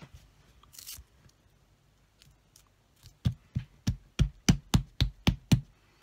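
Rubber stamp on a clear acrylic block being tapped against something: about nine quick sharp taps, roughly three a second, starting about three seconds in. A brief paper rustle comes just under a second in.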